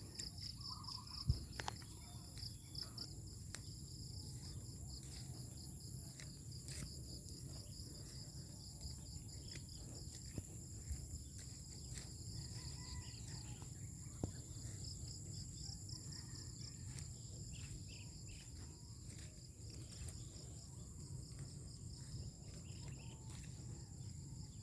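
Insects calling: a rapidly pulsing trill together with steady high-pitched buzzing, over a low rumble, with a few faint clicks.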